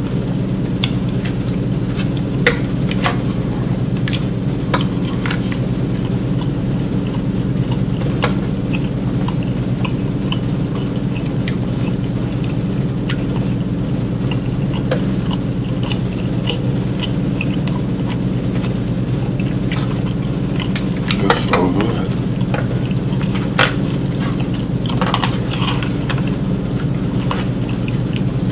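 A plastic fork scraping and clicking in an aluminium foil pan, with eating sounds, as scattered short clicks over a steady low hum. A brief louder cluster comes about three quarters of the way through.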